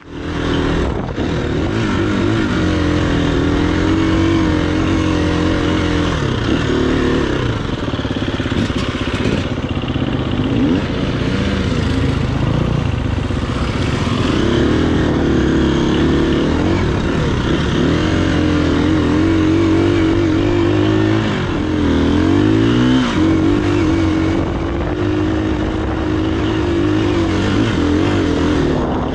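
Dirt bike engine, close up, riding a trail: revving and easing off with throttle and gear changes, its pitch rising and falling again and again, over the rush of wind and tyre noise.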